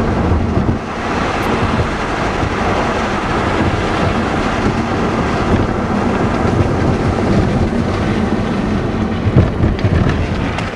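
Strong wind buffeting the microphone: a loud, steady rushing with a low rumble underneath, cutting off abruptly at the very end.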